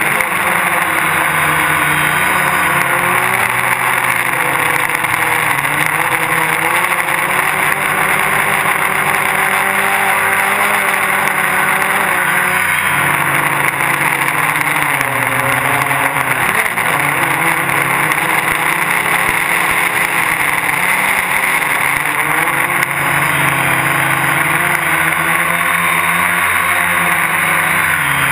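Gaui 330X quadcopter's electric motors and propellers whirring in flight, heard from a camera mounted on the craft. The pitch keeps wavering up and down as the throttle changes, with a deeper dip about halfway through.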